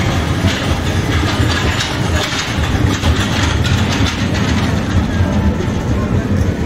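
Amusement-park ride running with a steady low rumble and a rattling clatter.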